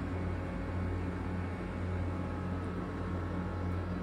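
Steady low electrical hum with an even hiss over it, from the refrigeration unit of a frozen-goods vending machine running.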